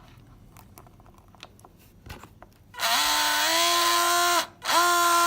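Small slot-car electric motor run from a PWM controller, giving the whine of PWM noise. A few quiet seconds with light clicks, then about three seconds in a pitched whine starts and steps up in pitch, cuts off briefly, and starts again near the end at a steady pitch.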